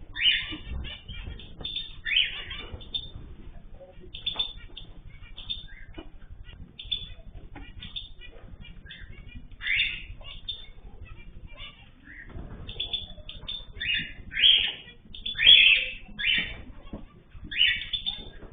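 Small cage birds in an aviary chirping and calling in short, repeated bursts, busiest in the second half.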